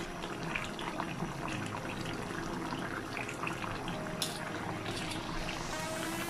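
Coconut milk sauce simmering in a wok, a steady soft bubbling and crackling, with a sharp tick about four seconds in.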